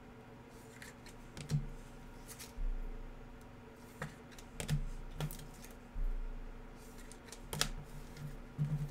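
Scattered light clicks and taps, about seven spread unevenly over several seconds, with a few soft low thumps between them.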